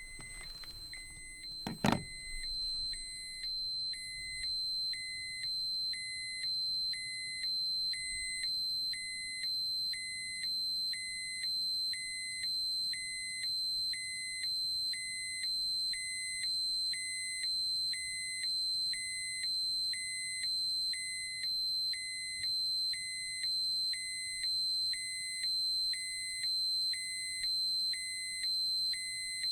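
Radiation dosimeter alarm: a steady high electronic tone with a lower beep pulsing on and off a little more than once a second. A sharp click comes about two seconds in.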